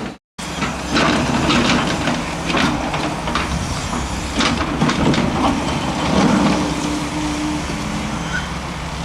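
Excavator running, a steady diesel engine drone with irregular clanks and knocks from the machine at work, and a short steady whine about six seconds in.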